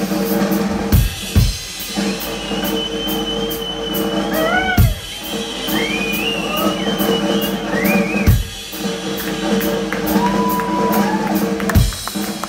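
Live blues band playing: a drum kit with fast cymbal strokes and a few heavy kick-drum hits under a held chord, with high lead notes bending up and down on top.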